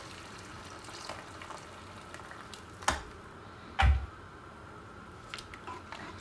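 Boiling water poured from an electric kettle into a pot of browned oxtail and carrots, with a steady watery hiss. A short knock and then a heavier thump come about three and four seconds in as the kettle is set down, followed by a few light clicks of a spatula in the pot.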